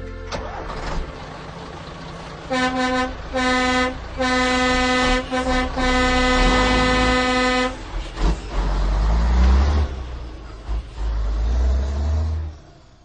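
Truck air horn sounding several blasts, the last one held for about two seconds. A truck's diesel engine rumbles underneath and rises in pitch as it revs afterwards.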